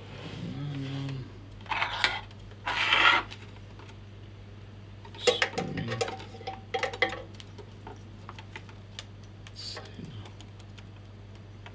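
Small metal parts such as screws and washers clicking and clinking as they are handled and fitted to a bench grinder, with a quick run of sharp clicks in the middle. Two short, louder noises come in the first few seconds.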